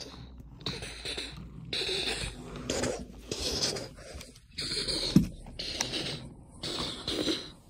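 A toy subway train's wheels rolling and scraping along wooden railway track as it is pushed by hand, in about five pushes of a second or so each, with a single knock about five seconds in.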